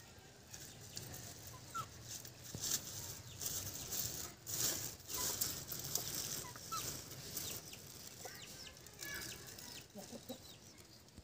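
Thin plastic bag crinkling and rustling in the hands as garlic cloves are taken out and peeled, loudest in the middle, with papery garlic skins rubbing. A few short bird calls sound in the background.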